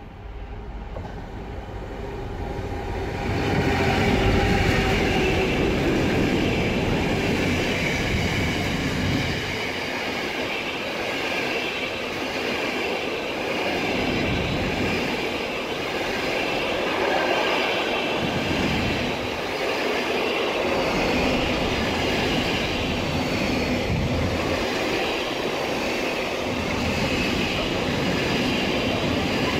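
Container freight train passing close by: the locomotive's approach builds up over the first four seconds, then the container wagons roll past with a steady rushing wheel-on-rail noise and a low rumble that swells and fades every few seconds.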